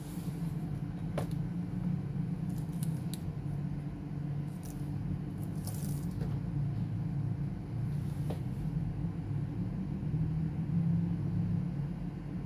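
A few faint clicks and taps of small hard parts being handled, scattered over a steady low hum.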